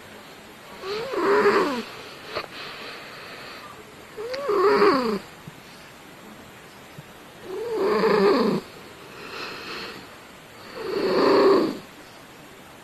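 Domestic cat snoring in its sleep: four loud snores about three seconds apart, each about a second long and rising then falling in pitch, with a softer breath between the last two. The snoring is loud and nasal, like a French Bulldog's.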